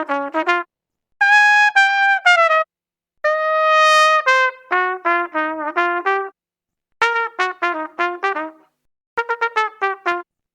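Brass horn with a trumpet-like tone playing a series of short separate clips: quick runs of notes and a few held notes. Each clip cuts off suddenly into a brief silence before the next, about five in all.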